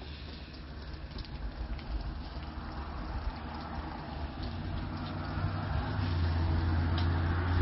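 Strong storm wind gusting over the microphone with a low rumble, building and growing louder toward the end.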